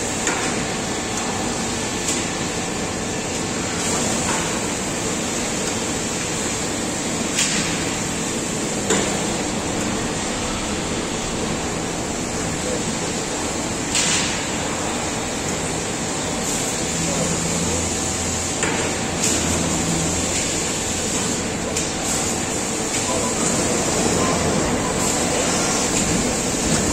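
2008 Trumpf TruPunch 5000 sheet-metal punching machine running: a steady hiss and hum, with a sharp knock every few seconds.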